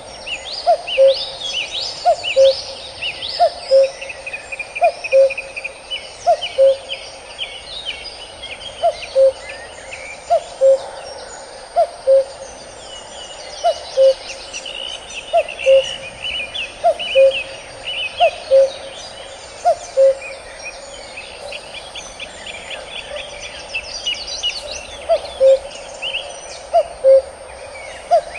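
Male common cuckoo calling its two-note "cu-coo", a higher note dropping to a lower one, repeated steadily about once every one and a half seconds. Smaller birds chirp and trill at a higher pitch behind it.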